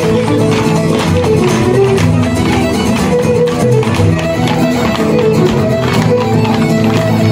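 Lively Irish traditional dance music led by a fiddle, with many sharp taps running through it.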